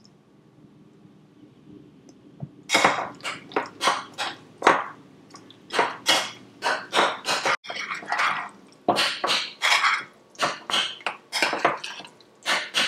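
A metal spoon stirring thick, wet guacamole in a white bowl, scraping and clinking against the bowl in quick, irregular strokes, starting about three seconds in.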